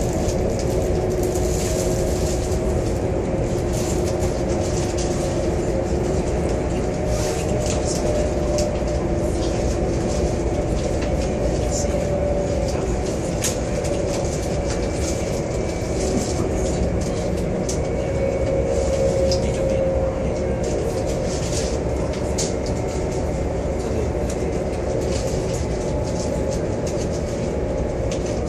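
Cabin noise of a high-speed passenger train running at speed: a steady low rumble with a faint hum in it, and scattered light ticks and rattles.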